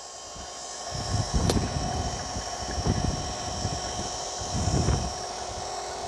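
Wind gusting across the microphone, over the faint steady hum of a small 12-volt rubber-impeller transfer pump circulating water. A single sharp click about a second and a half in.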